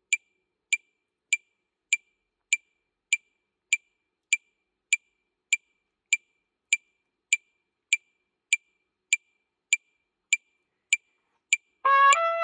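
Metronome clicking steadily, about one tick every 0.6 seconds (roughly 100 beats a minute), during a rest in the trumpet part. Near the end the trumpet comes back in with loud notes.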